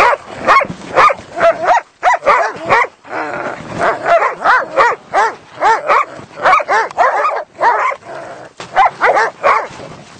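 Hunting dogs barking hard and repeatedly, about two barks a second with brief lulls, at a grey wild animal they have brought to bay.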